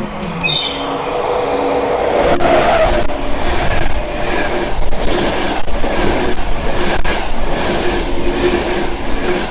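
Locomotive-hauled express train with ČD passenger coaches passing through the station at speed: a rush of wheel and air noise that swells from about two seconds in and holds, with a regular clack of the wheels on the rails about once a second.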